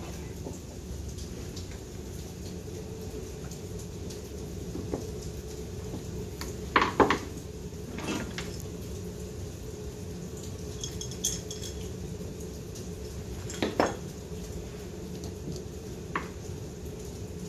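Small metal carburetor parts and hand tools clinking and knocking on a workbench: a few separate clinks, the loudest about seven seconds in, one with a short ringing note about eleven seconds in, over a steady low hum.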